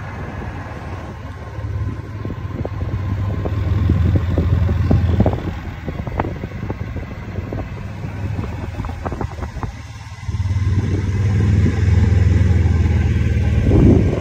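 Riding in a moving golf cart: a low rumble of wind buffeting the microphone and the cart running over pavement, with scattered rattles and clicks from the cart. The rumble swells and fades, drops away about ten seconds in, then comes back louder.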